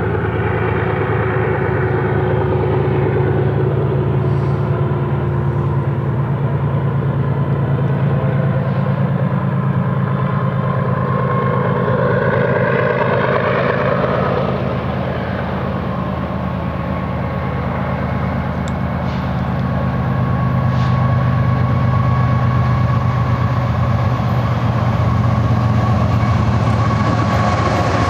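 BNSF freight train's GE diesel locomotives approaching under power, a steady low engine drone that grows a little louder in the last third as the units draw close.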